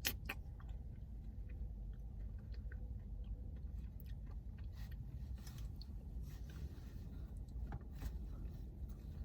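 Eating ice cream: soft chewing and mouth sounds with scattered small clicks, and a sharper click right at the start.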